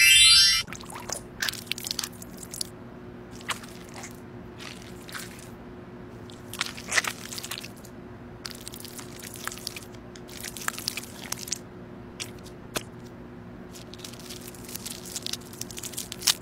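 Hands rubbing face cream into skin close to the microphone, giving scattered soft squishes and crackles. A steady low hum runs beneath them.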